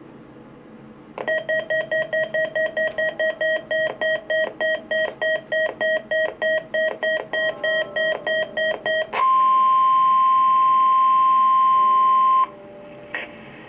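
Weather alert radio activating: the receiver's alarm beeps rapidly, about four beeps a second, for some eight seconds. Then comes the steady NOAA Weather Radio alert tone, a single tone of about 1 kHz (the 1050 Hz warning alarm tone), for about three seconds, cutting off sharply.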